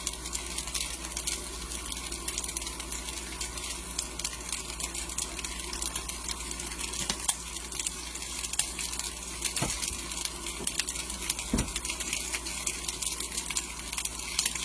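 Sliced potatoes frying in oil in a pan, a steady crackling sizzle. A utensil knocks against the pan twice, about ten and twelve seconds in.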